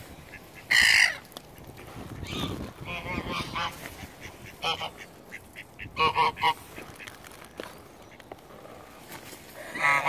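White domestic geese honking in short calls. The loudest honk comes about a second in, more follow through the middle, and there is a quick run of several honks about six seconds in.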